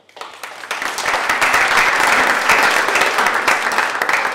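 Audience applauding: many hands clapping together, swelling over the first second and easing off a little near the end.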